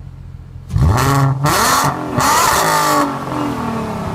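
Volkswagen Golf R32 (Mk5) 3.2-litre VR6 through a Milltek full exhaust, idling, then revved three times in quick succession starting just under a second in. Each rev climbs sharply and drops back, and the engine settles to idle again after about three seconds.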